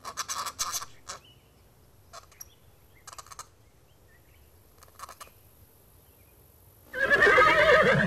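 A horse whinnying loudly for about a second near the end, a long wavering call. Earlier, a few short scratchy rasps come in the first second, with fainter ones and small chirps after.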